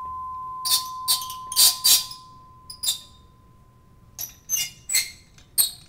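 Resonance-tube apparatus squeaking sharply about nine times, in two bunches, as the water reservoir is slid along its stand to change the water level. Under the squeaks a 1024 Hz tuning fork held over the tube sounds a steady pure tone that fades.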